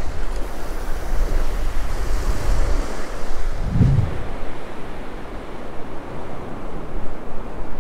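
Ocean surf washing up a sandy beach, with wind buffeting the microphone, the low rumble heaviest in the first few seconds and swelling briefly about four seconds in.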